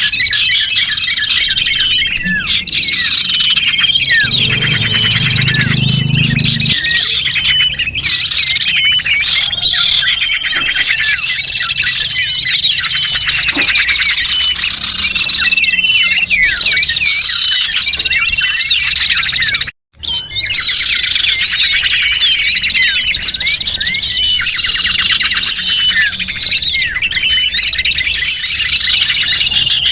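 Dense, continuous chirping and twittering of many small birds, a bird-lure call recording used to attract small birds. It cuts out for an instant about twenty seconds in.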